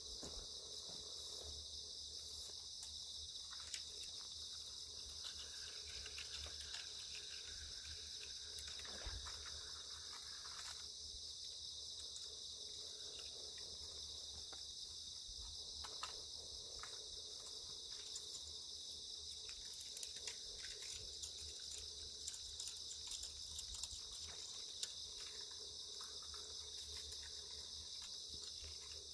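Steady high-pitched chirring of an insect chorus in the grass, with scattered faint clicks and rustles.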